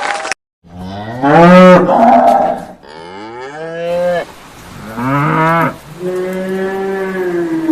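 Domestic cow mooing: about four long, drawn-out moos, one after another.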